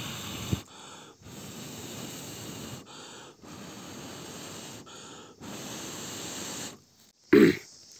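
A person blowing steadily on glowing embers under kindling to bring a small cooking fire to flame: long blows about every two seconds, each with a quick in-breath between. A brief louder vocal sound comes near the end.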